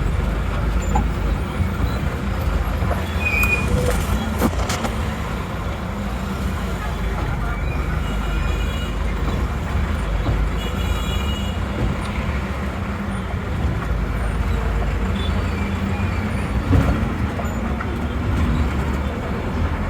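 Busy city street traffic: a steady low rumble of vehicle engines, with a couple of short high tones about eight and eleven seconds in.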